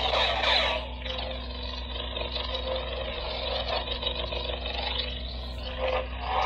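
Grey Blaze lightsaber's sound board playing a sound font's electronic hum, a low steady drone with swelling swing sounds as the lit blade is moved, loudest about the first second.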